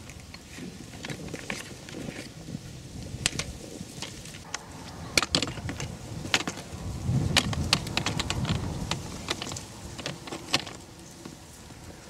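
Scattered clicks and knocks of fishing gear being handled and set up, with wind rumbling on the microphone, strongest about seven to nine seconds in.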